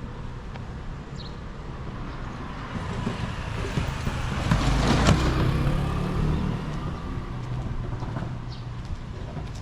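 A car driving past, its tyre and engine noise swelling to a peak about halfway through and then fading away.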